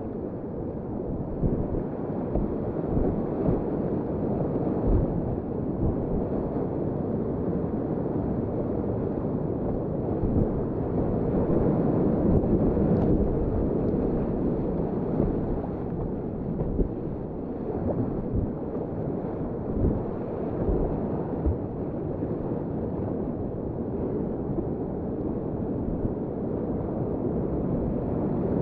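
Whitewater rushing steadily around a kayak in river rapids, with irregular low thumps of water and wind buffeting the camera microphone.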